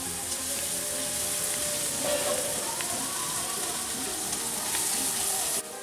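A steady hiss that cuts off abruptly near the end, with faint music underneath.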